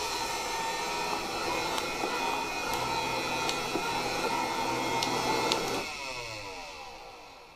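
Robot vacuum cleaner running under remote control: a steady motor hum and whine with a few small ticks. About six seconds in its motors switch off and wind down, the pitch falling as the sound fades.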